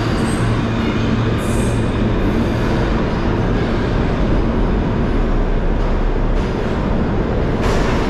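New York City subway train running through an underground station: a loud, steady rolling noise of wheels on rail, with a low hum from the train fading out about two seconds in.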